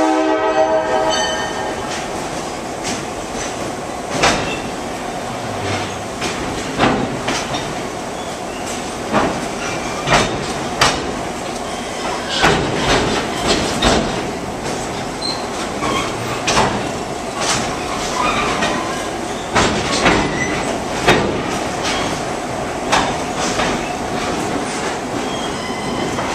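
Passenger train rolling along, heard from an open-air coach: a steady rumble with irregular clicks and clacks of the wheels over rail joints. A diesel locomotive's air horn chord cuts off about a second in.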